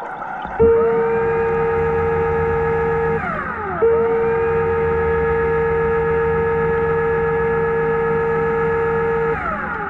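Underwater scooter (diver propulsion vehicle) electric motor whining as it runs underwater. It spins up about half a second in, winds down briefly after about three seconds, spins straight back up, holds a steady pitch, and winds down again near the end.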